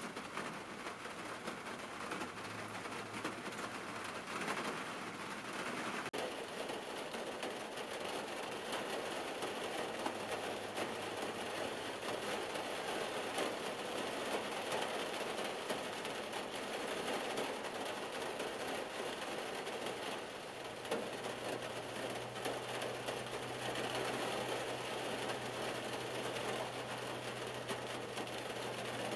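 Rain falling on a car's roof and windshield, heard from inside the cabin: a dense, steady patter of many small drops.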